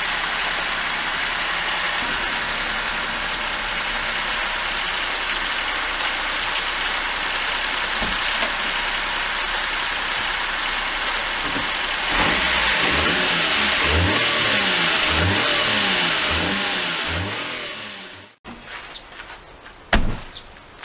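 Mitsubishi Minica H42V's small three-cylinder engine running steadily, then revved up and down in a series of quick blips from about twelve seconds in. The sound cuts off abruptly, followed by a single sharp knock near the end.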